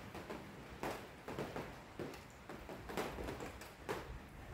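Irregular soft taps, roughly one or two a second, over a faint steady hiss.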